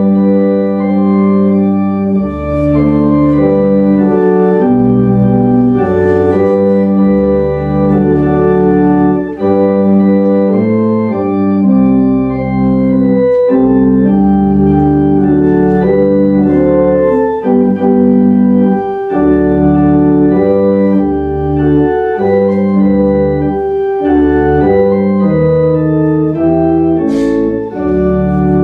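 Organ playing a hymn in sustained full chords, the chords changing about every second.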